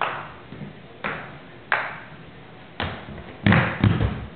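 Large paddles batting a small ball back and forth along a wooden floor: sharp, echoing hits about once a second. Near the end comes a louder, quicker run of thumps.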